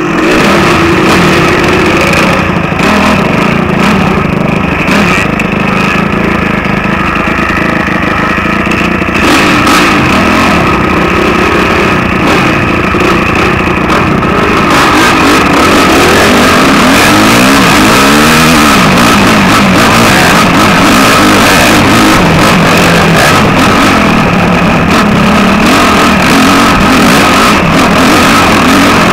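Dirt bike engine running under way on a rough trail, loud on a helmet-mounted camera, with the revs sweeping up and down about two-thirds of the way in.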